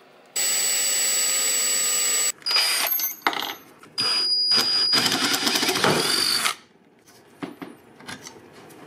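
Electric drill with a large spiral bit boring a hole through a dark bolster block held in a bench vise. It runs steadily for about two seconds, then gives a few short bursts, then drills under load for a longer stretch that stops about six and a half seconds in. A few light clicks follow.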